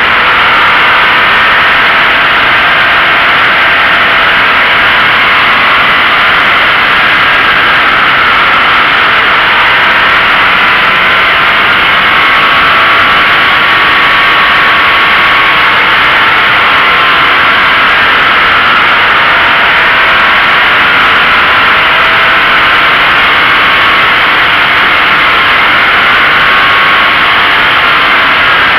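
Toyota GT86 driving at speed: steady wind and tyre noise rushing over a camera mounted low on the outside of the car. Beneath it, a faint engine note drifts slowly up and down with the revs.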